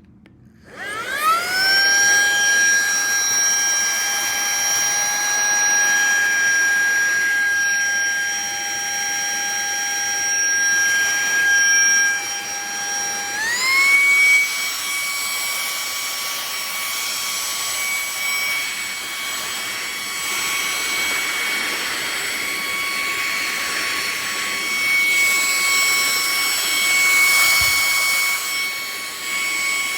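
Litheli LiteVac Mini cordless handheld vacuum switched on: its motor whine spins up within a second and runs steadily. About halfway through the pitch steps up abruptly as it is switched to its higher suction setting.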